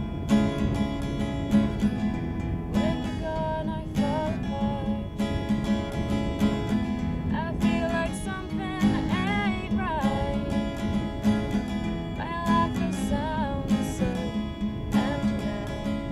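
Acoustic guitar strummed in a steady rhythm while a woman sings phrases over it.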